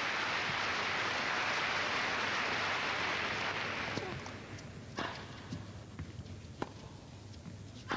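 Arena crowd applauding, dying away about halfway through. Then sharp tennis ball strikes of a rally: the serve, a return a second later, a bounce, and another racket hit.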